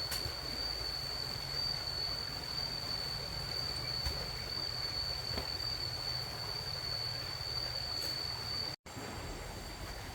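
Steady outdoor background noise with a low rumble and a thin, continuous high-pitched whine, broken by a brief dropout to silence near the end.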